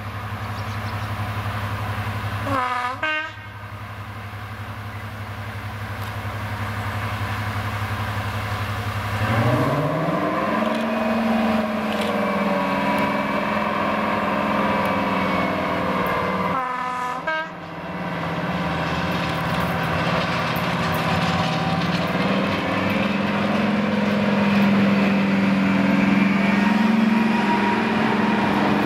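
Heritage diesel locomotive approaching and passing under power with a rake of coaches. Its engine runs at a steady low note, then about nine seconds in climbs sharply in pitch as the driver opens up, and carries on loud. The horn sounds briefly twice, once near the start and once about halfway.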